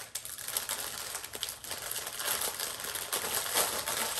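A thin clear plastic clothing bag crinkling as it is handled and pulled open: a continuous run of fine, dense crackles.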